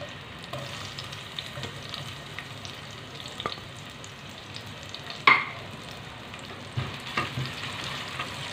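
Sliced onions sizzling in hot oil in a metal saucepan as they are stirred, with scattered clicks and one louder knock about five seconds in.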